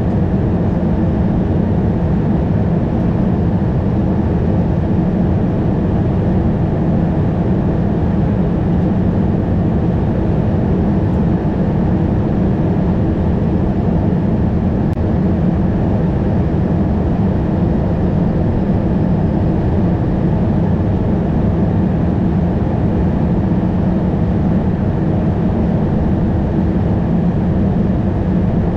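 Steady cockpit noise of an Airbus A220, a mix of engine and air rush, holding level with no change.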